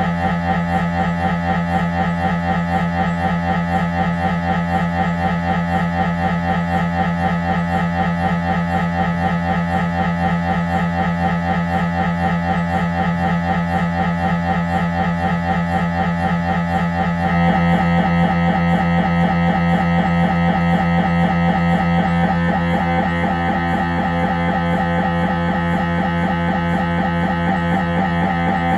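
Siemens Magnetom Avanto 1.5T MRI scanner's gradient coils buzzing in a fast, even, pulsing tone during an imaging sequence. About 17 seconds in the pattern changes and gets slightly louder and brighter, as the sequence shifts.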